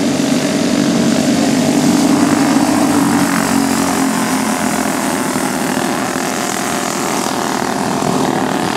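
Several small race-car engines buzzing together as the cars lap an oval, loudest about two to three seconds in as they pass close, then easing slightly.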